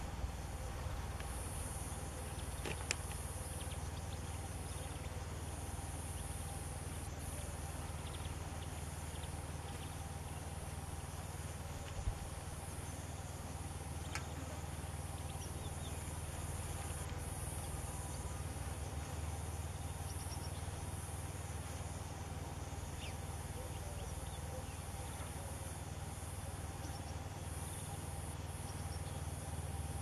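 A steady high-pitched insect chorus over a low, even rumble, with a few faint clicks.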